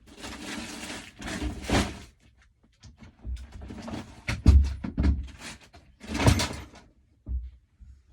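Rummaging: something slides for about two seconds, like a door or drawer opening, then a run of knocks and thumps as things are handled, with one last thump near the end.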